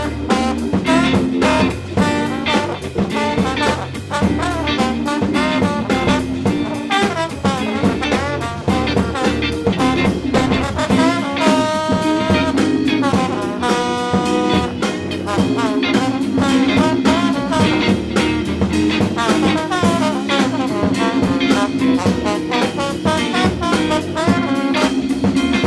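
Background music: upbeat jazz with brass horns over a steady drum beat, with a couple of long held horn notes about halfway through.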